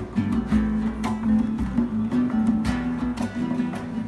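Music led by a strummed acoustic guitar, the strokes coming in a steady rhythm over sustained low notes.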